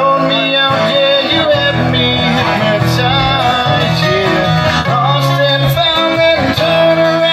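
Live acoustic band playing: strummed acoustic guitars and keyboard with steady low notes, and a voice singing the melody over them.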